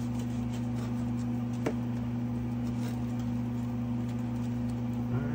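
Steady low electrical hum from a kitchen appliance motor, with faint crunches of a knife cutting through toasted sandwich bread and a single sharp click about a second and a half in.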